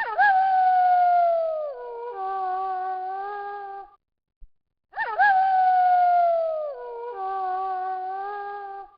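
Wolf howling twice, the same howl repeated about five seconds apart. Each howl swoops up at its start, holds a long slowly falling note, then drops to a lower note that it holds before breaking off.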